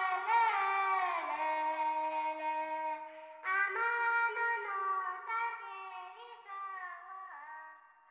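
Dance music with a high sung voice sliding between notes, in two phrases with a brief break about three seconds in; the second phrase trails off and fades out near the end.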